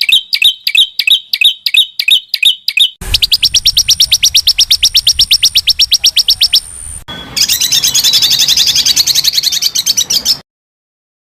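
Songbird calls from a bird-tutoring (masteran) recording: first a sharp note repeated about four times a second, then a fast high trill of about a dozen notes a second, then a dense, varied warbling song. The phrases change abruptly, as if spliced, and the song cuts off about a second before the end.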